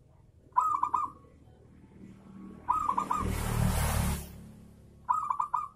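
Zebra dove (perkutut) singing its cooing song: three short phrases of quick notes spaced about two seconds apart. Through the middle phrase runs a rushing noise with a low rumble, lasting about a second and a half.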